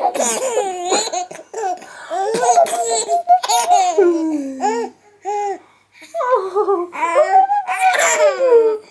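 A baby laughing hard in long runs of high giggles, breaking off briefly about halfway through.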